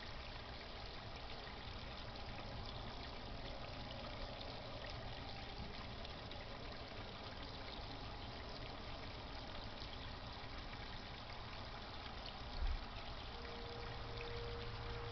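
Steady splashing trickle of water circulated by a garden pond pump, with a low hum underneath. A brief low thump comes near the end, followed by a faint steady tone.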